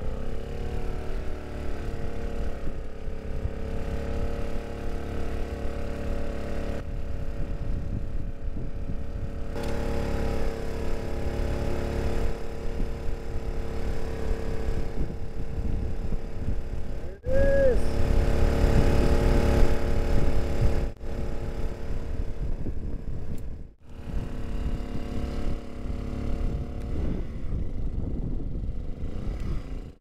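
A steady engine or motor hum with a low rumble underneath. It is loudest in a stretch a little past the middle and broken by three brief dropouts.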